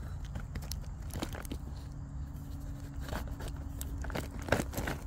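A hen-of-the-woods mushroom wedged against a tree being pulled and torn at: scattered crackles, snaps and rustles. A faint steady low hum runs behind it from about two seconds in until past four.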